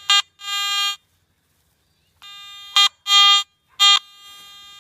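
Garrett metal detector's target tone: repeated buzzy beeps as the search coil is swept back and forth over a buried metal target, a short beep and a longer one, a pause, then three more with the middle one longest.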